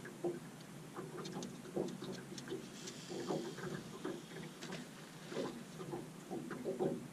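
Light, irregular clicks and ticks from a casting rod and line-counter reel as a line is cast out. A brief hiss about three seconds in is the line paying out.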